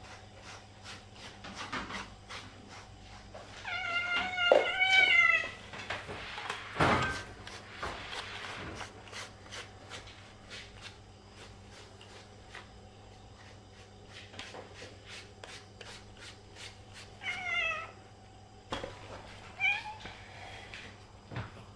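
Domestic cat meowing: one long, wavering meow about four seconds in, then two short meows near the end. Light clicks and a couple of brief rustles sound between the calls.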